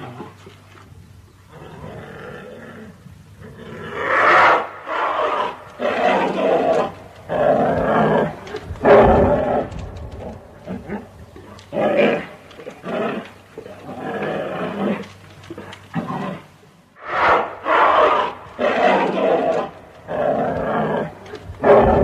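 Bear growling and roaring in a long series of rough, throaty calls, each up to about a second long with short breaks between. The calls are faint for the first few seconds and loud from about four seconds in.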